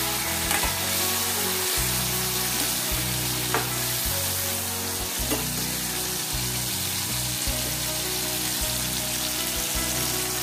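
Potato sticks deep-frying on a high flame in refined white oil in a steel kadhai, a steady, dense sizzle. A steel ladle stirs them now and then with faint ticks against the pan.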